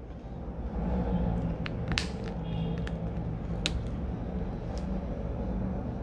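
A steady low rumble with a faint hum, broken by a few sharp clicks and a brief faint high-pitched tone a couple of seconds in.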